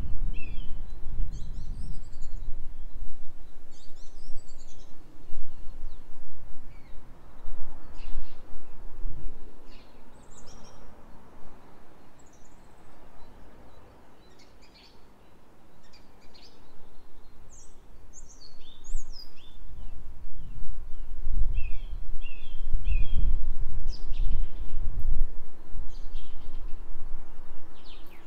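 Wind gusting across the microphone as a low rumble that eases off in the middle and picks up again after about twenty seconds, with small birds chirping and calling throughout.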